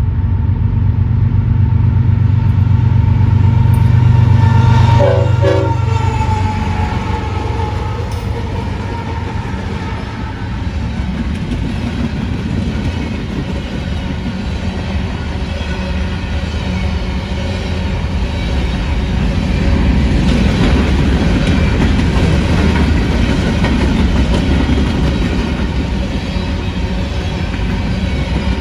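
Diesel freight locomotives passing close with a deep engine drone and a short horn note about five seconds in, then a long string of hopper cars rolling by with steady wheel-on-rail noise.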